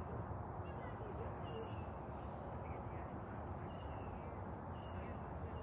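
Outdoor ambience: a steady low rumble with faint, short bird chirps every second or so.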